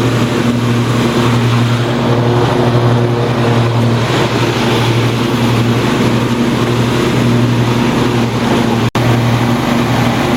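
Troy-Bilt GTX2654 lawn tractor's 26 hp Briggs & Stratton V-twin engine running steadily at mowing speed while the deck cuts grass. The sound cuts out for an instant about nine seconds in.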